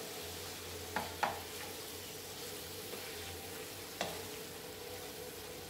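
Chicken in yogurt masala being stirred in a frying pan with a spoon, with a low sizzle. The spoon knocks against the pan twice about a second in and once at about four seconds.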